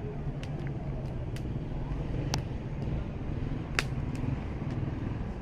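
Bonfire crackling, with a few sharp isolated pops, over a steady low hum.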